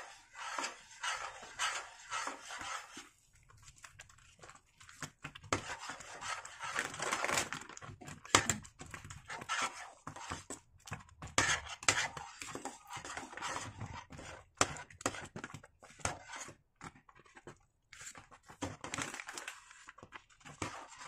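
Metal spoon stirring thick, thickening rice-flour dough in a stainless steel pot: irregular scraping strokes with short pauses between them.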